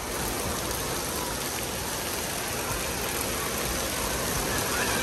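Steady rushing hiss of water spraying and splashing down at an indoor water park.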